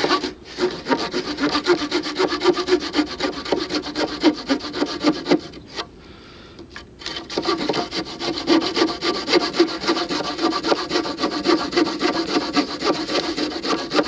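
The saw blade of a Victorinox RangerGrip 130 mm pocket knife cutting through a wooden pole with quick back-and-forth strokes. The strokes stop for about a second roughly six seconds in, then start again.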